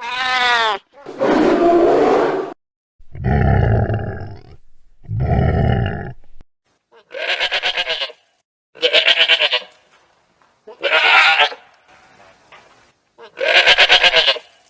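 Four goat bleats in the second half, each about a second long with a fast quaver, spaced about two seconds apart. They follow several other separate calls, one of them falling in pitch.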